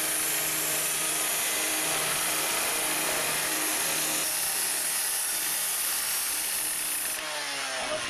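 Power saw running steadily as it cuts through a washing machine's cabinet, then stopping near the end.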